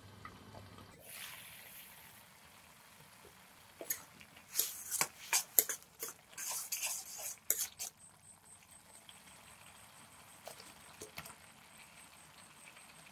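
Metal ladle clinking and scraping against a stainless steel wok while stirring a thick, wet tomato sauce, a run of sharp scrapes and knocks in the middle. A brief hiss about a second in.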